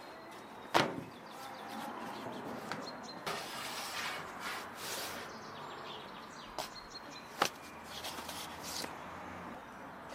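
A wooden stick and thin sheets of pasta dough being handled on a round steel griddle: two sharp knocks several seconds apart, with soft rustling sweeps in between.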